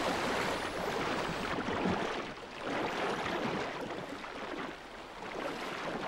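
Sea water splashing and rushing as a pod of dolphins churns the surface while feeding, swelling and easing off twice.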